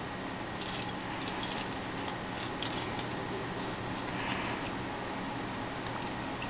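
Small plastic model-kit parts from a 1/144 High Grade Gunpla kit clicking and rattling as they are picked through and handled. A string of light clicks in the first three seconds, a few more later on, over a steady low hum.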